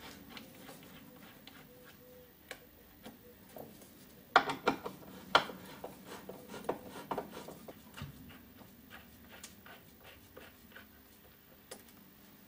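Screwdriver clicking and scraping on screws as they are taken out of an amplifier head's cabinet, with a cluster of louder knocks and clatter about four to five and a half seconds in and scattered small ticks the rest of the time.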